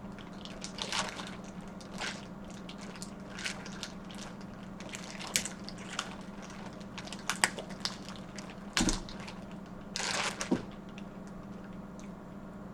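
Snow crab leg shells being cracked and snapped apart by hand, giving scattered short sharp cracks, the loudest cluster near the end. A steady low hum lies underneath.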